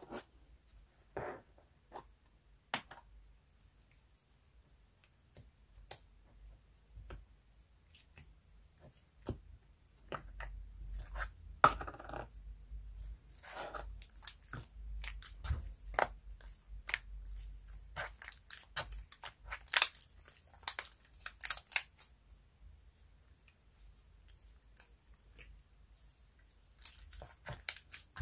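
Clear slime handled by hand: sticky clicks, crackles and squishes as it is pried out of its clear tub, then stretched and squeezed. The clicks are sparse at first and come thick and fast in the middle.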